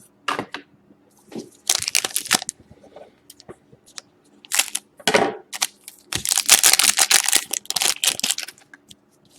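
Foil wrapper of a 2013-14 Upper Deck Artifacts hockey card pack being torn open and crinkled, in several noisy bursts, the longest and loudest starting about six seconds in.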